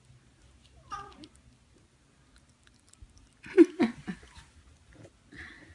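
Cat vocalizing while the kittens are being fed: a brief cry about a second in and a louder, short cry about three and a half seconds in.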